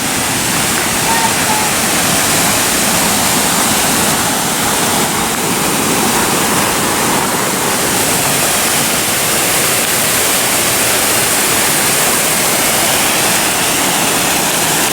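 Waterfall: a steady, loud rush of falling water, even and unchanging.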